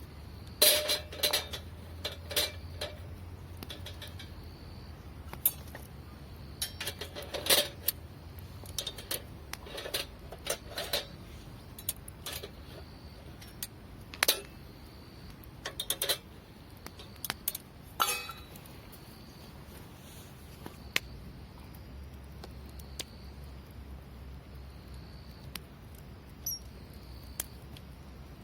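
Irregular clicks and knocks of small hard objects being handled, busiest in the first two-thirds and sparse after that.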